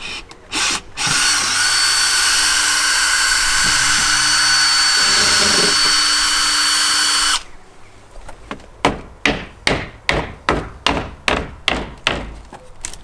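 Cordless drill-driver backing screws out of a wooden trellis panel: two short blips, then a steady run of about six seconds that stops abruptly. After it comes a run of sharp knocks, about two a second.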